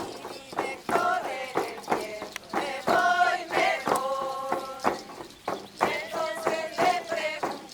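Voices singing a held, wavering melody together over a steady beat struck on cajas (frame drums).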